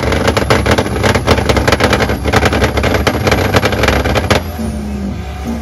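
Modified car engine held at high revs, with a rapid, irregular crackle of exhaust pops over a deep rumble. It cuts off abruptly about four seconds in.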